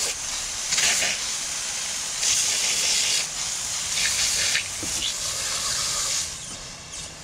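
Garden hose spraying water onto a crappie against the grain of its scales, hosing the soft scales off instead of scraping them with a knife. A steady hiss of spray that swells and eases as the stream is moved, dropping away near the end.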